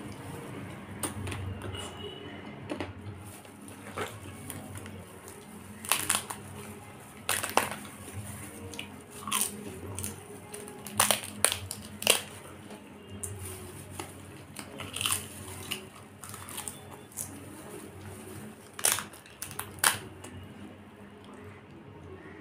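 Close-miked eating of crisp papad: irregular sharp cracks and crunches as the wafer is broken by hand and chewed, the loudest clusters coming about a third of the way in, in the middle and near the end.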